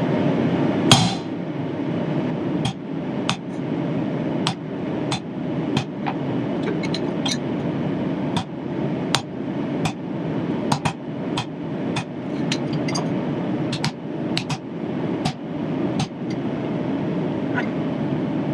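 Hammer lightly tapping a chisel to mark lines on steel strips, with sharp metallic taps spaced irregularly every half second to a second; the first, about a second in, is the loudest. A steady low rushing noise runs underneath.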